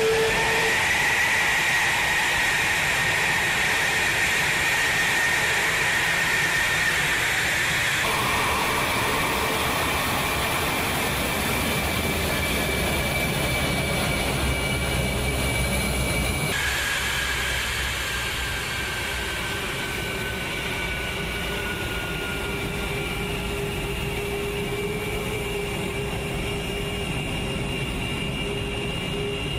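An F-22 Raptor's twin F119 turbofan engines running at idle: a steady high whine over a deep rush. The whine's pitch jumps abruptly twice, about a third and about halfway through, then sags slowly.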